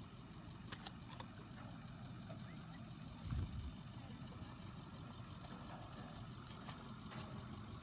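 Vehicle engine idling steadily as a low hum. It is joined by a few faint clicks about a second in and a short low thump a little past the middle.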